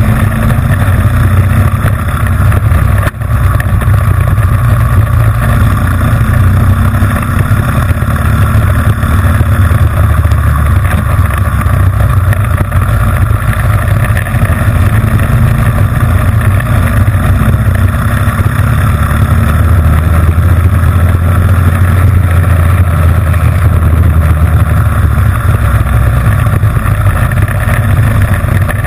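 Onboard sound of a racing kart's Honda GX160 single-cylinder four-stroke engine running hard under race load, loud and steady, with a brief dip in loudness about three seconds in.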